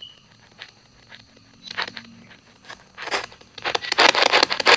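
Spirit box sweeping through radio frequencies: chopped bursts of static, sparse and faint at first, then a fast, loud stutter of static from about three and a half seconds in.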